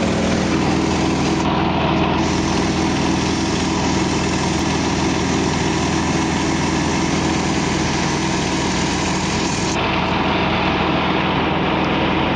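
Yak-52's nine-cylinder M-14P radial engine and propeller running steadily in flight, heard from inside the cockpit as an even drone.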